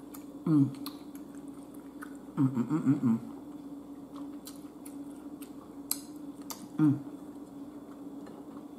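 Close-miked chewing of a mouthful of food with small wet mouth clicks. Short hummed "mm" voice sounds come about half a second in, in a cluster between two and a half and three seconds, and again near seven seconds. A steady low hum runs underneath.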